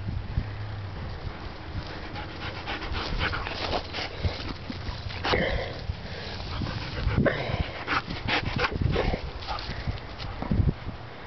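Siberian Husky panting close to the microphone, with scattered rustles and knocks from handling around the middle.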